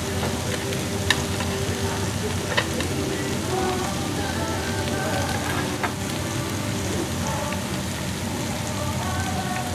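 Pork belly and side foods sizzling steadily on a tabletop Korean barbecue grill plate, with a few sharp utensil clicks about one, two and a half, and six seconds in.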